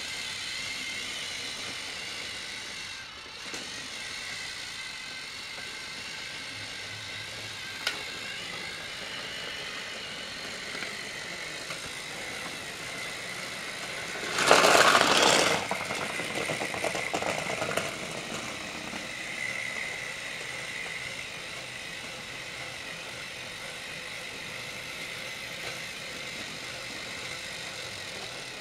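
Battery-powered Trackmaster toy train motors whirring steadily, with plastic wheels running on plastic track. About halfway through comes a loud clatter of plastic parts lasting about a second, followed by a few seconds of lighter rattling.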